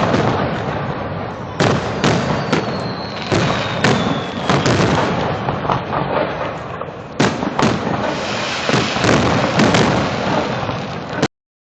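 Fireworks display going off in quick succession: sharp booms and crackling bursts overlap one after another, with a faint falling whistle about two to three seconds in. The sound cuts out abruptly just before the end.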